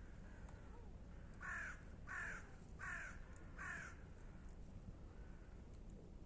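Crow cawing: four loud, harsh caws in a row starting about a second and a half in, roughly one every 0.7 s, with fainter calls before and after.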